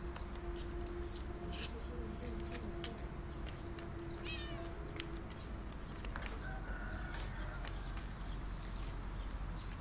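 Outdoor street ambience: a steady hum that stops about halfway through, a few faint short animal calls (one about four seconds in), and scattered light clicks.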